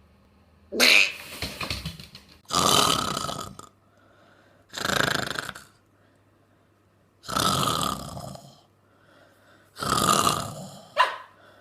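A dog making a series of five rough, drawn-out vocal noises, each about a second long and coming roughly every two and a half seconds, with a short sharp click near the end.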